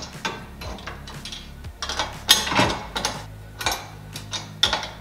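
Wrench clicking and clinking against the nuts and steel bracket of a basketball pole's support arm as the bolts are worked, a series of irregular sharp metallic clicks.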